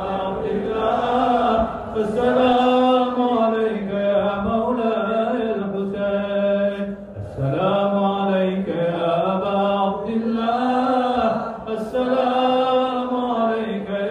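A voice chanting a devotional salam in a slow melodic recitation, with long drawn-out notes that bend in pitch, sung in phrases with short breaks for breath.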